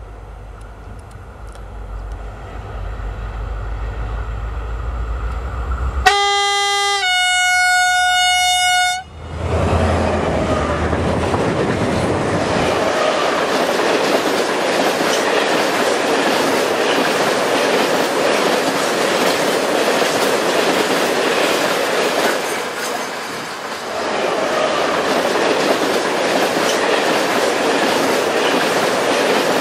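Vossloh Euro 4000 diesel locomotive hauling a loaded timber train: a low engine rumble grows louder as it approaches, then about six seconds in its horn sounds two notes, a lower one and then a higher one held for about two seconds. From about nine seconds the locomotive and log wagons pass close by, a steady loud rush of wheels on rail.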